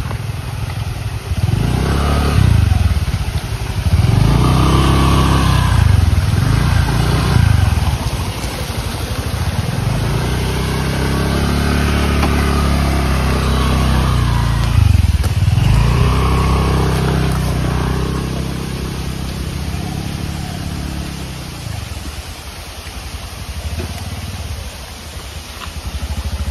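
Small motorcycle engine running under way, its pitch rising and falling several times as it revs and eases off, quieter near the end.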